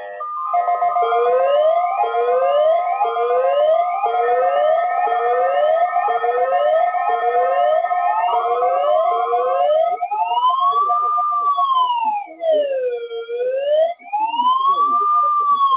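Electronic siren: a rising whoop repeats about once a second over steady held tones, then about ten seconds in changes to a slow wail that rises and falls.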